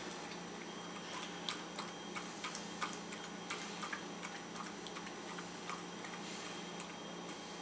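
Miniature dachshund lapping water from a bowl: a run of irregular soft clicks, a few a second.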